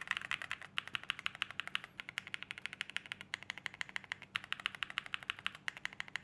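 Fast typing on a mechanical keyboard fitted with Red Jacket switches: runs of rapid keystrokes broken by short pauses. The keystrokes sound clacky and mid-pitched, and louder than the WS Morandi switches.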